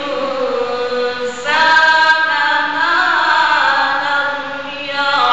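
A man's solo voice reciting the Qur'an in Arabic (tajweed qirat) in long, melismatic held notes. One phrase trails off about a second in, a new, higher phrase is held for several seconds, and another begins near the end.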